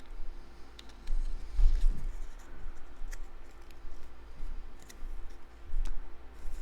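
Light clicks, taps and rustles of cardstock pieces being handled and pressed down by hand, with a soft low bump about two seconds in and another near the end.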